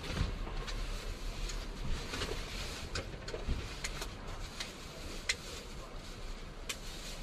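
Steady low hum and hiss of background noise, with about a dozen faint, irregular clicks and taps scattered through it.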